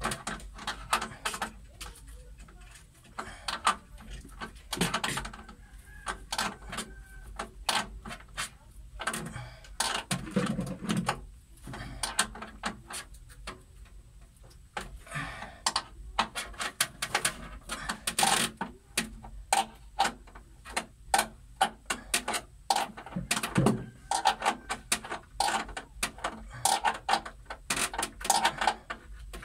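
Irregular clicking and knocking, sometimes in quick clusters of several a second, with a couple of heavier, duller knocks.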